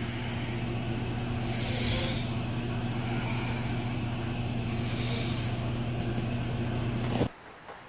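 Steady low mechanical hum under a hiss, with two brief swells of higher hiss, cutting off suddenly near the end.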